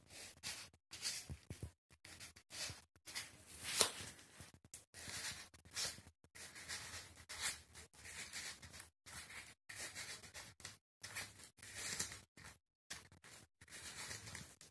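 A cloth towel rustling and scraping across a foam exercise mat as bare toes grip and scrunch it up, in short irregular scratchy bursts.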